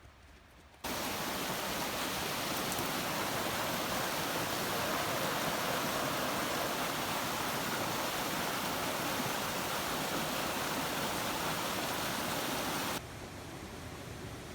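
Steady rush of a fast mountain creek, cutting in suddenly about a second in and dropping to a quieter rush near the end.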